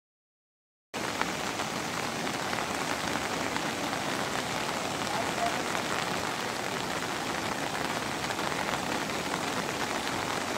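Steady rain falling, starting abruptly about a second in.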